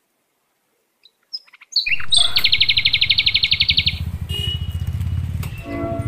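A bird's rapid chirping trill lasting about a second and a half, over a low pulsing rumble that starts about two seconds in. Musical notes come in near the end.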